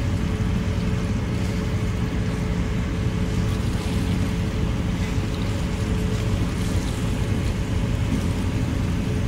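Tour boat's engine running steadily under way, a constant drone with a held hum, over the rush of water and wind.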